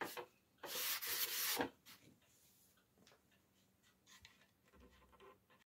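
Hand sanding of a wooden cabinet frame with a sanding block: a short scrape at the start and one longer stroke about a second in, followed by only faint light knocks.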